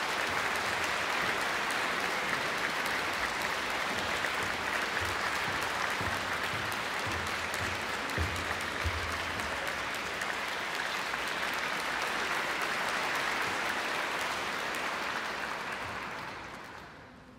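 Audience applauding steadily as performers walk on stage, dying away near the end.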